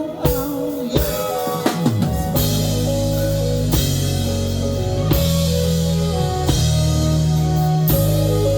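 Live band playing an instrumental passage: drum kit hits over guitar and keys lines, then about two seconds in a falling slide leads into a heavy, sustained low bass line with the full band.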